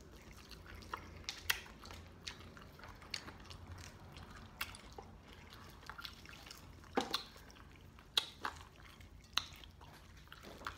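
Mouth sounds of someone eating fried chicken wings with hot sauce: irregular, scattered short smacks and clicks while chewing and picking meat off the bone, the loudest about 7 and 8 seconds in.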